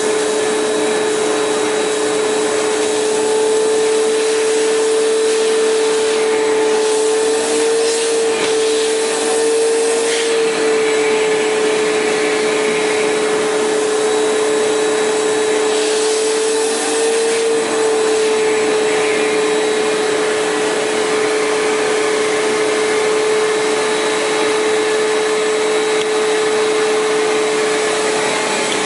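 Cyclonic collector vacuum running steadily: a strong motor whine over rushing air, its pitch wavering briefly twice with added hiss.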